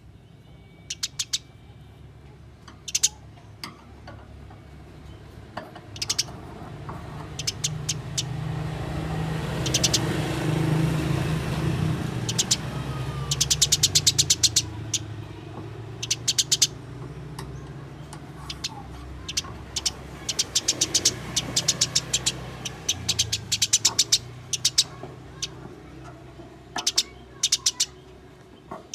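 Eurasian tree sparrows giving rapid, harsh chattering bursts, the squabbling calls of sparrows fighting, repeated many times, over a low background rumble that swells in the middle.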